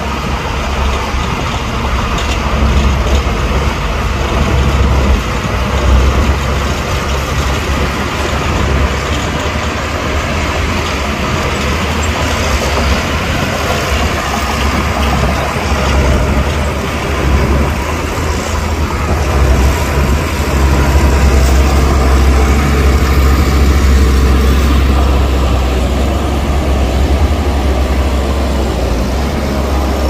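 Bulldozer's diesel engine running loudly and steadily, a deep continuous rumble that grows a little louder in the second half.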